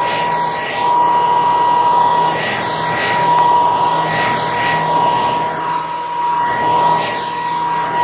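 Handheld hair dryer running: a steady high whine from its fan motor over the rush of blown air, the level swelling and dipping slightly.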